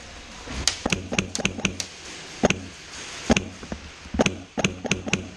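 Airsoft BBs striking plywood and wooden stud walls: irregular sharp knocks and ticks. A quick cluster of about eight comes about a second in, then single hits, then another cluster near the end.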